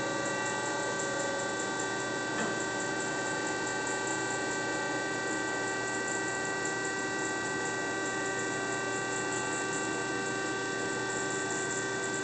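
W.F. Wells F-15 horizontal band saw running steadily under power, its blade driving through a cut as the head feeds down, a steady multi-tone machine whine. A single light click about two and a half seconds in.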